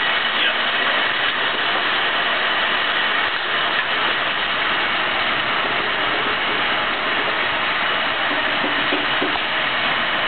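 Steady machinery noise that holds an even level with no change in pitch.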